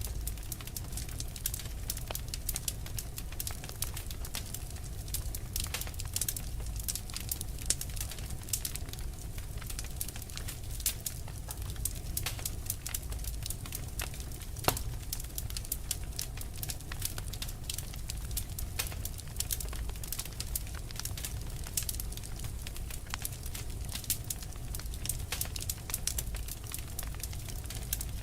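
Wood fire burning with dense, irregular crackling and popping over a steady low rumble of flame.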